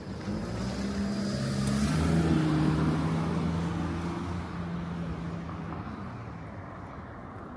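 A car driving past slowly, its engine and tyres growing louder to a peak about two to three seconds in, then fading away.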